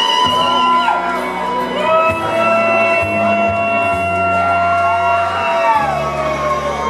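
Live rock band playing a slow passage: long held notes that slide from one pitch to the next over a steady bass, with the crowd shouting and whooping.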